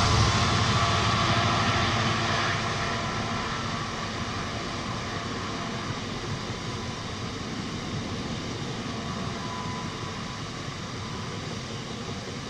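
Class 66 diesel freight locomotive's engine running as it draws its train away, fading over the first few seconds. After that comes the steady rumble of loaded open box wagons rolling past on the rails.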